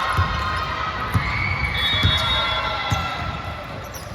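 A basketball dribbled on an indoor court floor, with dull thuds about once a second. A brief high squeak comes about two seconds in.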